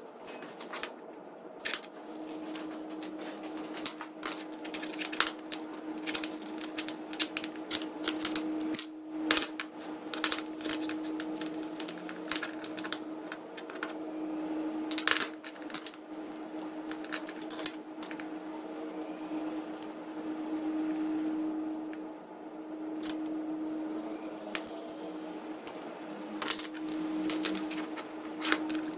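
Small metal parts clicking, clinking and tapping as they are handled and fitted, with many irregular light knocks, over a steady hum that starts about two seconds in.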